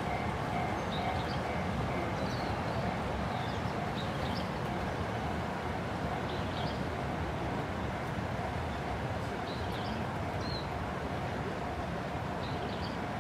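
Steady outdoor background noise with faint bird chirps scattered through it.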